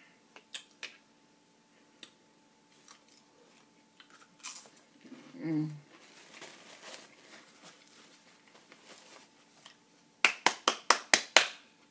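Rapid finger snapping, about eight sharp snaps in under two seconds near the end. Before it, a paper bag rustles and a few light clicks sound.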